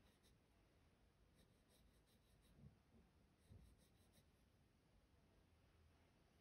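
Faint scratching of a Prismacolor colored pencil shading on paper, in short runs of quick strokes. Two soft low bumps come a little under three and about three and a half seconds in.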